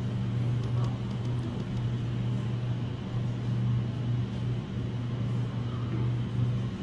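Steady low mechanical hum of supermarket background noise, with a faint hiss over it.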